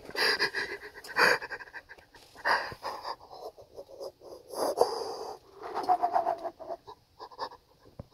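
A person breathing heavily and wheezing in short, irregular breaths, with a brief pitched moan about six seconds in.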